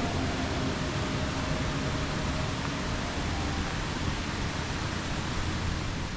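Steady rushing of a rain-swollen mountain stream pouring over a low waterfall, an even loud hiss of water.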